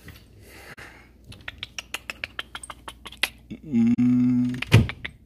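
A quick run of light clicks and rattles, like kitchen containers and items being handled while searching for sugar. A steady low hum follows for about a second, then one sharp knock.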